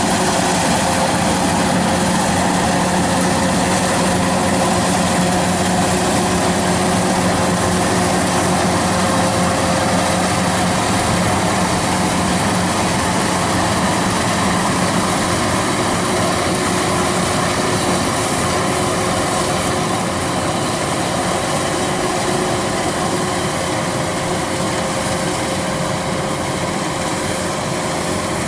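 Kubota DC-93 combine harvester running steadily under load while cutting rice: a constant diesel engine drone with the dense clatter of the header and threshing drum. It eases off slightly about two-thirds of the way through.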